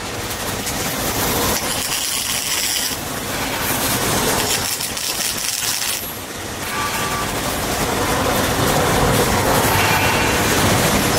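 MIG welding arc crackling and sputtering as a steel mounting plate is welded to a truck body, with brief pauses about three and six seconds in. In the second half a steadier, lower running noise takes over.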